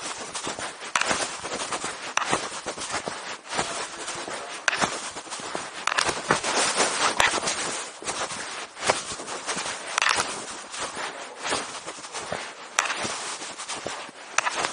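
Handling noise from a covered recording device: continuous irregular rustling and scraping with sharp clicks and knocks at uneven intervals.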